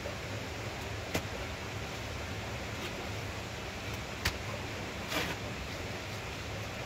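Lumps of wet mud slapped by hand into a wooden brick mould: two sharp slaps, about a second in and about four seconds in, and a rougher, slightly longer sound a second after the second one, over a steady background hiss.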